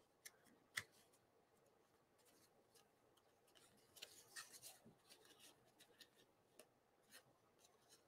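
Faint rustling and light clicks of cardstock being handled and pressed onto an adhesive strip. A sharper click comes just under a second in, with a short cluster of rustles around the middle.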